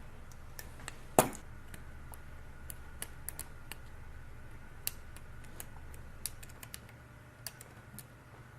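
Light, scattered clicks and taps of small repair tools against a smartphone's parts during reassembly, with one sharper click about a second in, over a steady low hum.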